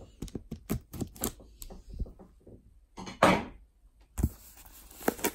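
A knife cutting open a cardboard box: a run of small clicks and taps as the blade works at the box, a short scraping slice about three seconds in, then more clicking after a brief pause.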